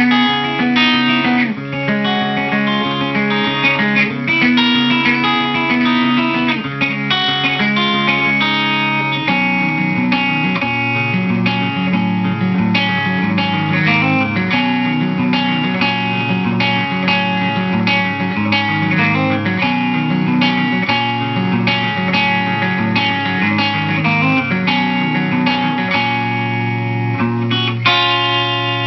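Electric guitar played through a Fender blackface amp with a Barge Concept RC-2 compressor pedal switched on, mixing chords and single notes that ring on with even sustain.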